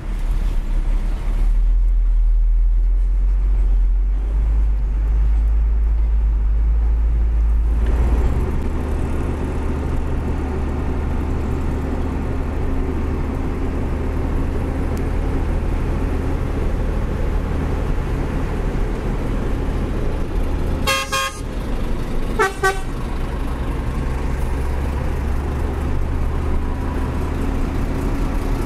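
Diesel engine of a Hino 500 dump truck running, heard from inside the cab as a steady low drone whose note steps higher about eight seconds in. A horn gives two short toots a little over twenty seconds in.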